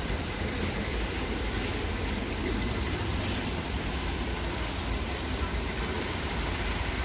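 Steady city street traffic noise: an even low rumble with a hiss over it, no single vehicle standing out.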